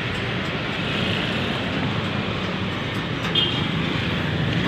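Steady city street traffic: engines of passing jeepneys, motorcycles and cars running, with a brief high-pitched sound about three seconds in.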